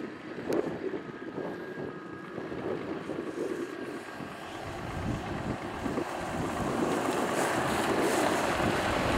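Scania dump truck with a tipper trailer driving slowly across a gravel quarry yard: diesel engine running and tyres rolling on gravel, getting louder over the second half as it comes closer. Wind buffets the microphone.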